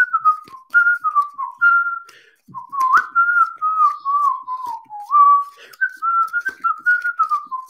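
A man whistling a wandering tune with his lips, short sliding notes with a brief pause about two and a half seconds in.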